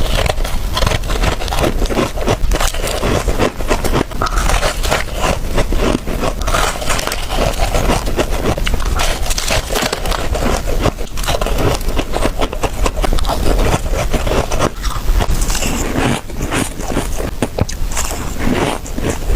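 Soft frosty ice, close up, being scraped and crunched in a dense, continuous run of crisp crackling strokes.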